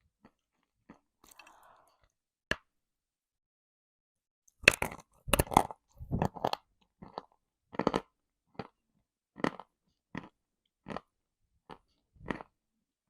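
A person biting and chewing a lump of edible earth (chalk or clay) close to the microphone, crunching. A faint crackle and a single sharp bite come first; then there is a burst of loud crunches about five seconds in, followed by crunching chews roughly every three-quarters of a second.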